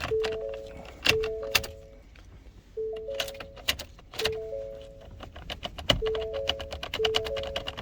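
Background music with a repeating short figure of notes, over sharp metallic clicking in quick clusters from a key being worked in and out of a dirty ignition lock cylinder that has just been flushed with spray oil.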